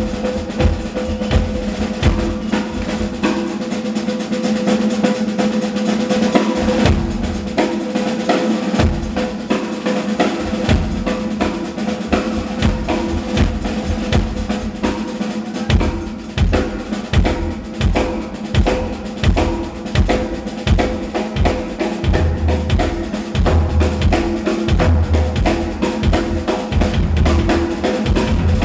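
Drum kit played at speed: rapid snare rolls and fills over bass drum, with a steady held tone underneath. Heavier bass drum beats come in about two-thirds of the way through.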